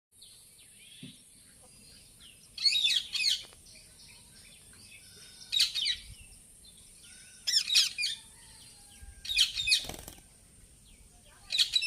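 Indian ringneck parakeet calling in short bursts of rapid high chirps and screeches, five bursts a couple of seconds apart.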